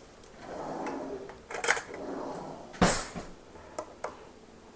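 Kitchen utensils clattering: a metal fork clinking in an opened can of sliced pineapple and things being handled on the counter. A few sharp clicks come a little over a second in, then one hard knock about three seconds in, the loudest, then two light clinks near the end.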